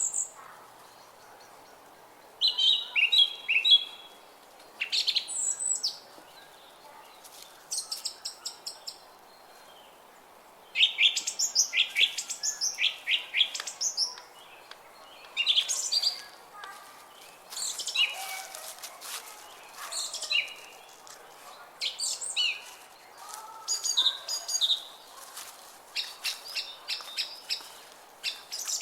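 Songbirds singing: short phrases of quick repeated chirps and trills, one after another with brief pauses between, over faint steady background noise.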